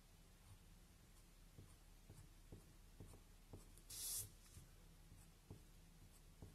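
A coloured pencil scratching faintly on paper in short strokes, with one longer, louder scratch about four seconds in.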